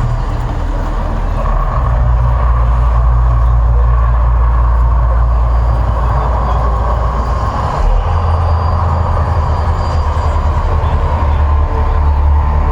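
Deep, loud, continuous rumbling of the Mirage volcano eruption show, swelling about two seconds in.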